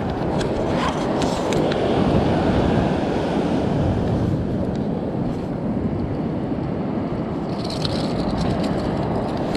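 Strong wind buffeting the microphone over the rush of surf. A few sharp crunches and clicks come in the first second or so and again near the end, like footsteps on a shell-strewn beach.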